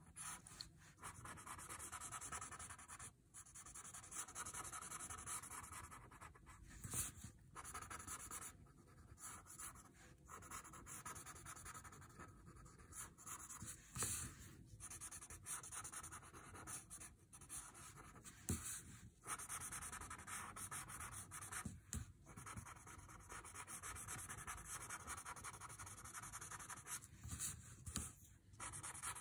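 Paper tortillon rubbing over pencil shading on a paper tile: faint, scratchy rubbing in strokes, with brief breaks between them.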